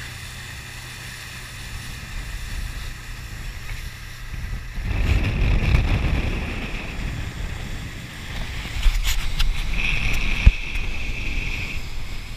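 Speedboat running at speed over open water: a low engine rumble with rushing water and spray, and wind on the action-camera microphone. The rush gets louder about five seconds in, and a steady high whine comes and goes.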